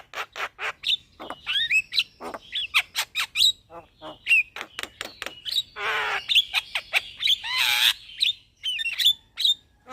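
Javan myna singing a fast, varied song: rapid clicking notes mixed with sharp rising whistles, broken by two harsh rasping phrases a little past the middle.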